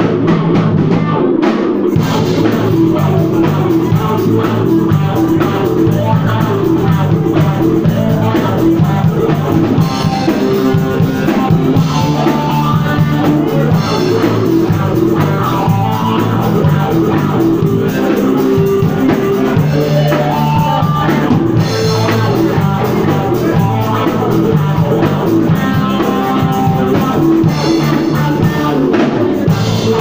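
Live rock band playing: electric guitar over a drum kit, with cymbals coming in about two seconds in.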